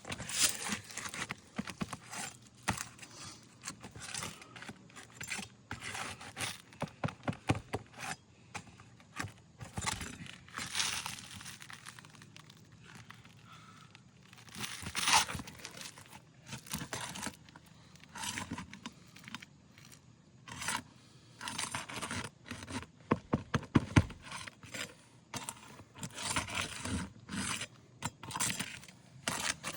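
Nails being pried out of an asphalt roof shingle by hand: irregular scraping against the gritty shingle, with sharp clicks and knocks, and a few longer scrapes now and then.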